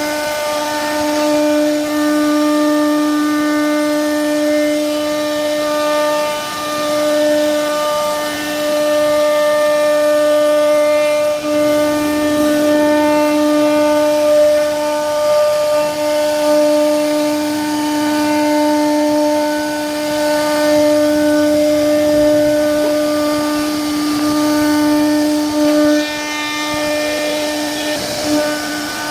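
CNC router spindle running at a steady pitch, giving a held whine with a noisy cutting hiss as it carves wood. The loudness dips a little every few seconds as the cutter moves.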